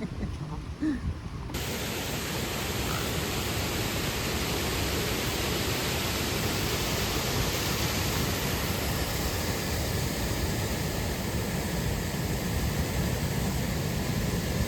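Waterfall: a steady, even rush of falling water, cutting in abruptly about a second and a half in.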